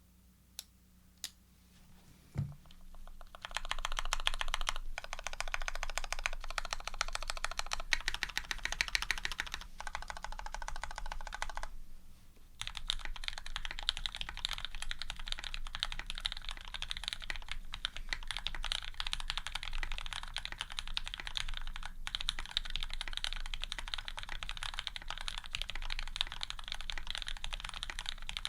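Fast, continuous typing on a Serratus custom mechanical keyboard with lubed, filmed Cherry Retooled Black linear switches, an aluminium plate and GMK keycaps. A few single key clicks and a low thump come first, the typing starts about three and a half seconds in, and it breaks off briefly near the middle.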